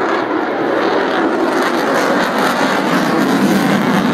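Lockheed Martin F-22 Raptor's twin Pratt & Whitney F119 turbofan jet engines, a loud rumbling roar as the fighter flies past overhead, its pitch sinking slightly as it goes by.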